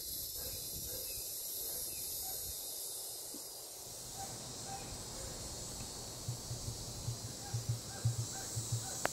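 Steady high chirring of insects, with a few faint short bird calls. In the last few seconds comes a run of soft, irregular low thumps.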